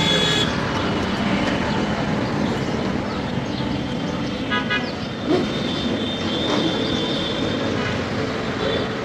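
Road traffic noise from riding through busy city streets. A vehicle horn toots briefly about four and a half seconds in.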